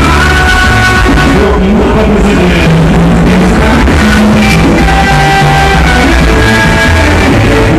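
Loud music played over a sonidero's sound system, dense and continuous with a strong bass line.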